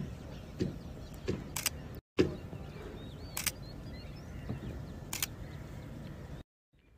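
Camera shutter clicking three times, nearly two seconds apart, over steady background noise. The sound cuts out briefly twice.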